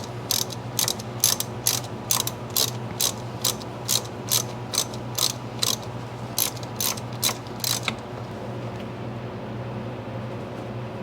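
Ratchet with an 8 mm socket clicking in an even rhythm, about two to three clicks a second, as the rear brake caliper's hanger pin bolt is tightened down. The clicking stops about eight seconds in.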